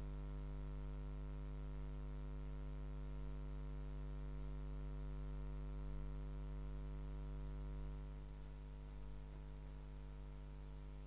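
Steady electrical mains hum over a faint hiss, easing slightly about eight seconds in; nothing else is heard.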